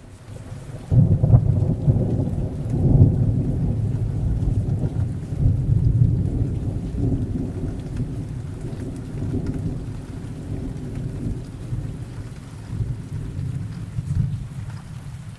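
Thunder rolling over steady rain: a loud low rumble breaks about a second in, swells a few times and slowly dies away.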